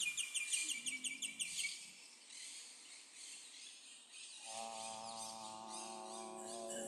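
A bird chirps in a quick, even trill for the first second and a half or so, then only a faint hiss remains. About four and a half seconds in, voices begin a steady, sustained chanted "how" tone.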